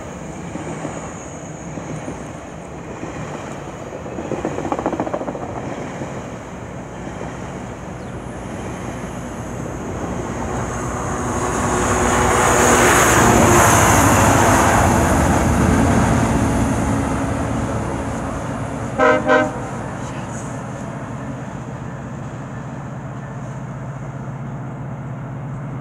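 GO Transit bilevel commuter train passing below, its diesel locomotive pushing at the rear: the engine and wheel noise grows to a peak about halfway through and then fades as the train pulls away. About three-quarters of the way through, the locomotive's horn gives two short toots in quick succession.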